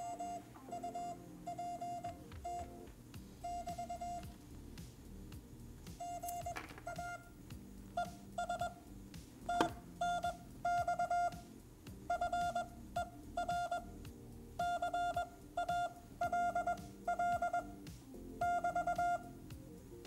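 MFJ-418 Morse code pocket tutor sending a practice QSO in Morse code: a single steady beep keyed on and off in dits and dahs at a brisk sending speed. Two sharp knocks about six and nine and a half seconds in, from the unit being handled.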